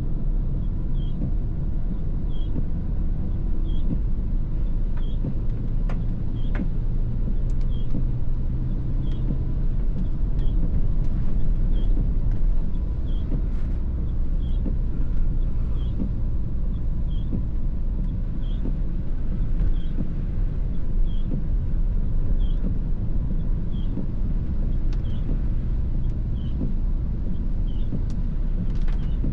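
Mini Clubman (R55) cabin noise while driving: a steady engine and road rumble, with a faint short high chirp repeating about once a second.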